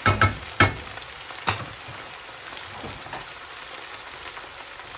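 Sliced onions sizzling in oil in a red enamelled frying pan, with a few sharp knocks of a wooden spoon against the pan in the first second and a half as they are stirred. After that the sizzle runs on steadily.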